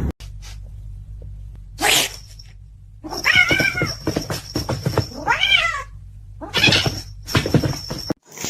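A cat yowling: two long, wavering cries about two seconds apart.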